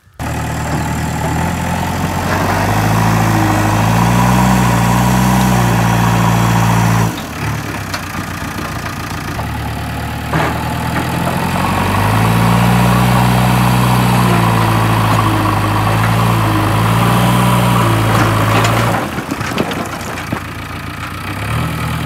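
A JCB 3DX backhoe loader's diesel engine running under load, with its revs rising and falling as it works. It eases off briefly about seven seconds in and again near the end.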